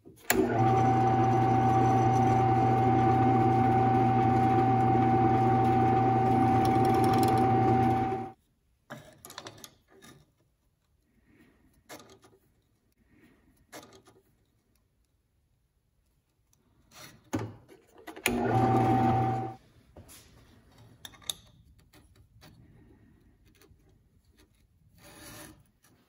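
Benchtop drill press motor running with a steady whine for about eight seconds, with a small steel knife part held under the bit, then switched off. Light clicks and knocks from handling the chuck and bit follow, and the press runs again for about a second.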